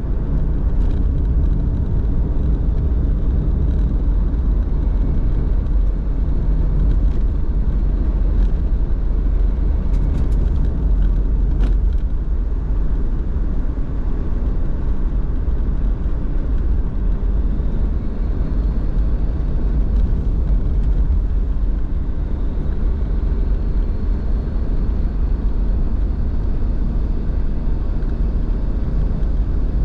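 A car driving along: a steady low rumble of engine and tyres, with a few faint clicks in the first twelve seconds or so.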